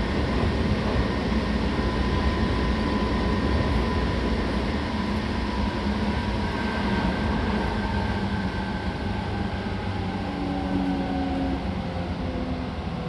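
Seibu 6000 series electric train running, its Hitachi GTO inverter and traction motors whining over the rumble of wheels on rail. The whine tones glide steadily down in pitch as the train slows, with a short stepped tone near the end.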